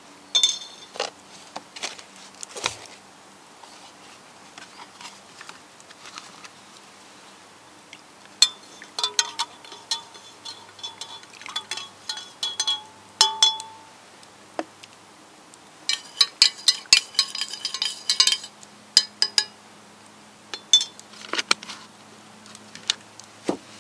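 Metal teaspoon clinking against enamel camping mugs as tea is stirred, in several runs of quick, ringing clinks with short pauses between them.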